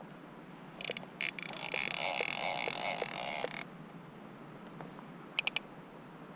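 Fly reel's click-and-pawl drag buzzing as line is pulled off the spool: a few short pulls about a second in, then a steady run of nearly three seconds, and three quick short clicks of line near the end.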